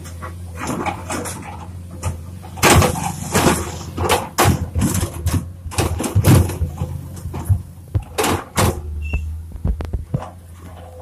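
Komatsu PC210 hydraulic excavator's diesel engine running steadily, with irregular clunks, knocks and scrapes as its bucket works a pile of broken asphalt slabs.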